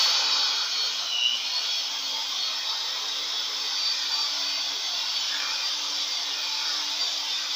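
Mondial electric hand mixer running steadily, its beaters whipping a thick cream of whipped cream, doce de leite and cream cheese in a bowl. The motor's hum dips for a moment about a second in, then creeps slightly higher in pitch.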